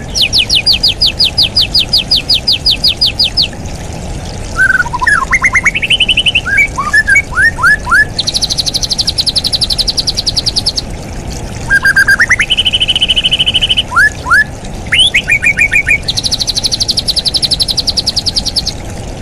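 Straw-headed bulbul (cucak rawa) singing: runs of rapid high trills, about ten notes a second, alternate with lower, rising whistled notes.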